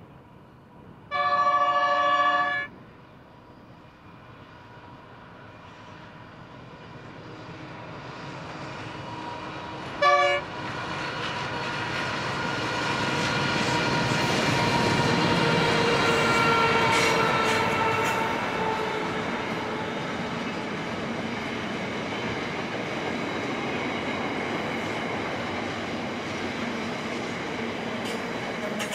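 Two NR-class GE Cv40-9i diesel-electric locomotives approaching on a container train: a chord horn blast of about a second and a half comes about a second in, and a short toot around ten seconds in. Then the locomotive engines pass, loudest midway, and container wagons roll by with steady wheel-on-rail noise.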